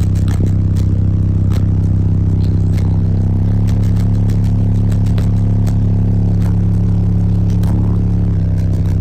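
Aura Monstro 15D1 15-inch subwoofer, driven by a Phoenix Sport 1.4500 amplifier at 0.5 ohm, playing a bass-heavy music track at very high level inside a car's cabin. The bass holds long steady notes, changing pitch about three and a half seconds in and again near the end, with scattered rattling clicks from the car's interior.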